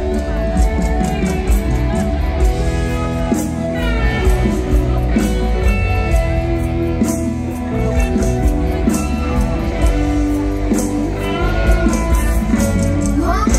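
Mor lam band music played live: plucked guitar and bass over a steady drum beat.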